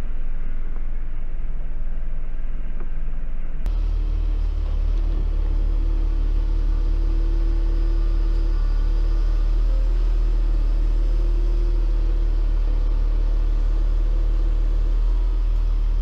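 Crane truck's engine running steadily, a deep low rumble with a faint hum above it; the sound turns abruptly fuller and deeper about four seconds in.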